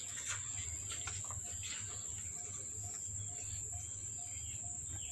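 Faint background ambience: a steady high-pitched whine with a soft short note repeating about twice a second.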